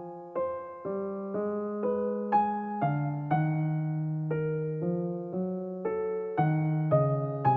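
Background music: a piano or electric piano playing a slow melody of single notes over held chords, a new note about every half second.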